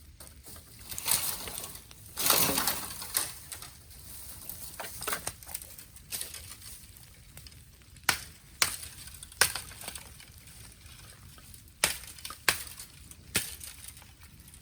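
Burning bamboo crackling, with sharp cracks and pops: a crunching rustle about two seconds in, then about six loud pops in the second half.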